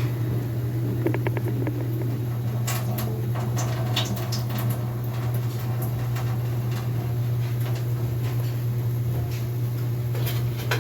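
Juice being drained from an opened can of diced tomatoes and green chilies: small ticks, clicks and patters of the can, lid and liquid, most between about two and five seconds in. A steady low hum runs underneath and is the loudest sound.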